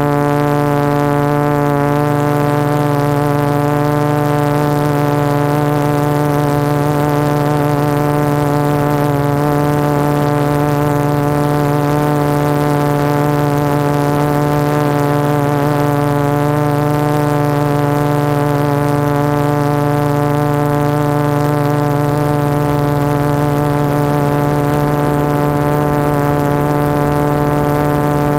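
Quadcopter's four MultiStar 2212 920kv brushless motors spinning 12x4.2 carbon-fibre props in a steady hover: a constant loud hum holding one pitch with many overtones, picked up by the GoPro mounted on the frame.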